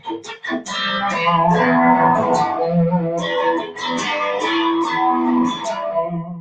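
Electric guitar playing a gritty blues riff: single picked notes with a few short, choked chord strokes near the start and the end.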